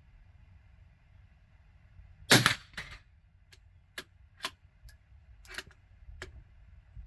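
A single shot from a CZ 457 Jaguar bolt-action .22 LR rifle, a sharp crack with a short tail, about two seconds in. It is followed by about six separate sharp metallic clicks, typical of the bolt being worked to eject the case and chamber the next round.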